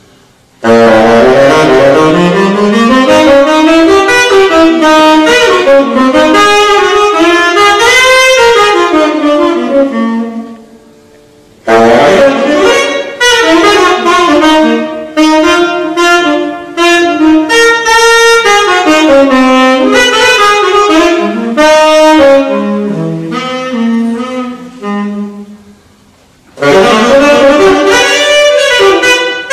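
Unaccompanied tenor saxophone playing fast, flowing jazz lines. It plays in three long phrases with two short breaks between them.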